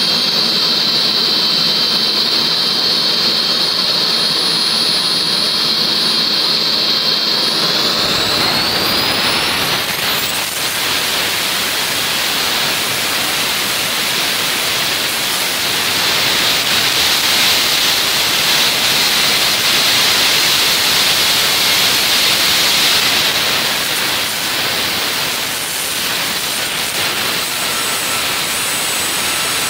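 JETPOL GTM100 micro turbojet running on a test stand, first at a low setting with a steady high whine. About eight seconds in it spools up: the whine rises in pitch and gives way to a loud, even jet roar, which eases back a little near the end as the thrust is reduced.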